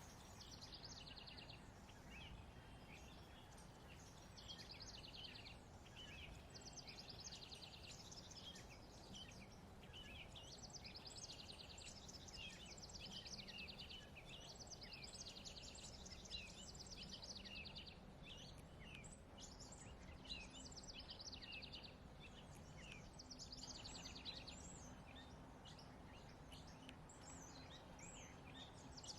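Songbirds singing, faintly: phrases of rapid trilled notes repeat every few seconds over a low background rumble.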